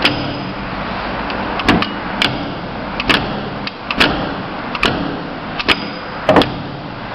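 Lift running with a steady hum, with a string of sharp clicks and knocks at irregular spacing.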